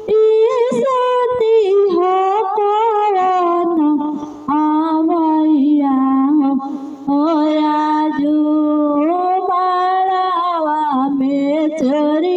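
A woman singing a vivah geet, a folk wedding song for a daughter's marriage, solo and unaccompanied, in long held, wavering notes with short breaks between phrases.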